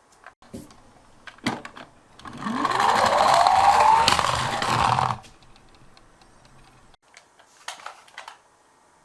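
A toy minicar's wheels whirring along a slope track, the whir rising in pitch for about three seconds as it gathers speed, then cutting off. A few light clicks and taps come before it and near the end.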